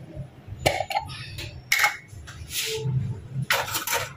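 A jar of ginger-garlic paste being opened and handled on a kitchen counter: a few short knocks and clicks of the jar and its lid, then some brief scraping noises.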